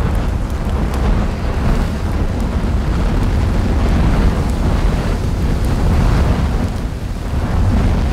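Low, steady rumbling roar of a volcanic eruption, with lava fountaining and spattering from the crater.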